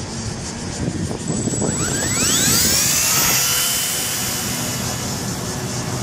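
Walkera V120D02S micro RC helicopter's electric motor and rotor spooling up, the whine rising steeply in pitch about two seconds in, then holding a steady high whine as it flies off.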